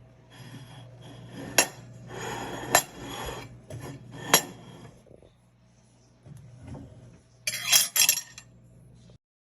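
Metal cutlery knocking against dishware: three sharp, separate clinks a second or so apart over a faint rustle, then a quick run of clinks near the end before the sound cuts off.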